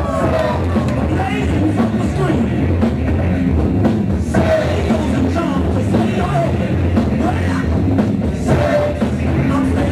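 Loud breakbeat music for the b-boy battle, with drums, heavy bass and a singing vocal line.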